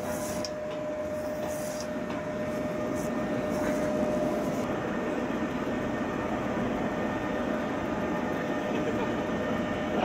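Steady mechanical rumble, with a thin steady whine over it that fades out about four seconds in.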